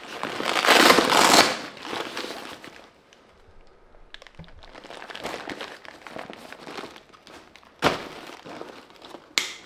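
Hook-and-loop (velcro) fastening on a Cordura backpack's strap-on pouch ripping apart for about a second and a half as the pouch is pulled off, followed by softer fabric rustling. A sharp click comes about eight seconds in, with another short rasp near the end as the pouch is fastened back.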